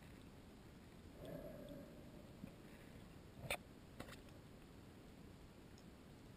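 Quiet underwater ambience heard through a submerged camera: a faint steady hiss, a brief muffled tone a little over a second in, and two sharp clicks about half a second apart near the middle.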